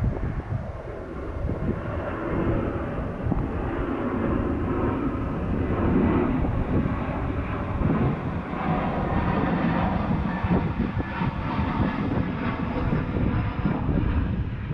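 Wind blowing across the microphone in uneven gusts, a dense low noise.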